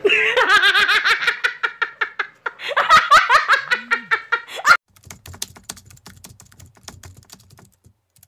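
A young woman laughing hard in quick, high-pitched pulses for almost five seconds, cutting off abruptly. Then faint, rapid clicking over a low hum.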